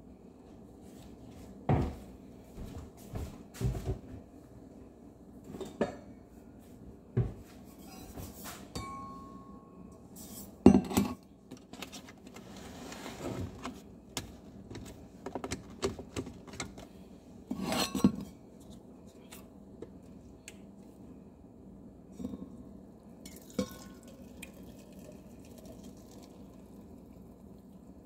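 Plastic blender jar being handled on its base: scattered knocks, clunks and clinks, the loudest about eleven and eighteen seconds in, over a faint low steady hum.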